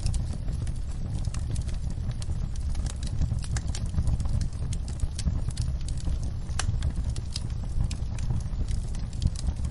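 Wood fire crackling, with frequent irregular sharp pops and snaps over a steady low rumble, mixed with rain on a window.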